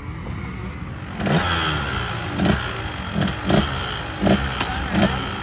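Small two-stroke dirt bike engine running and being revved in a string of quick throttle blips from about a second in, each blip dropping back in pitch.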